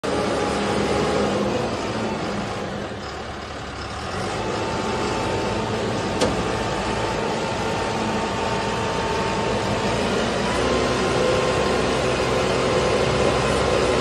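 Diesel engine of a self-loading concrete mixer running as the machine moves, with a thin steady whine that steps up slightly in pitch and gets louder about ten seconds in. A single sharp click about six seconds in.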